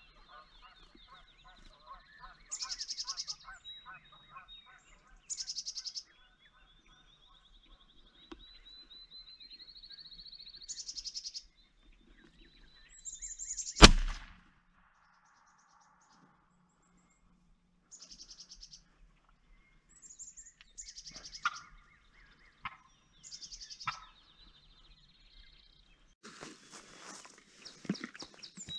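Turkeys calling in short, rapid pulsed runs. About 14 seconds in there is a single loud shot from an AirForce Texan air rifle converted to fire a .55-calibre (28-gauge) shot shell, then more short calls and rustling near the end.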